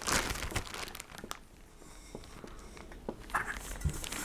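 Plastic bag crinkling as it is handled, loudest in the first second or so, then a few light knocks as the aluminium cookset pieces are moved on the table.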